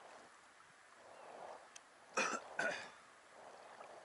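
Kayak paddle strokes splashing and dripping on the sea. About two seconds in come two short loud bursts half a second apart, the loudest sounds here.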